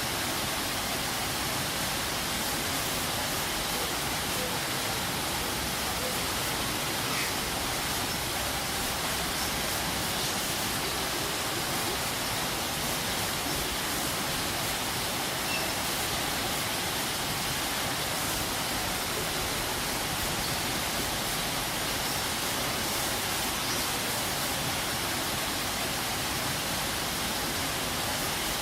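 Waterfall: a steady, even rush of falling water, a constant hiss without change.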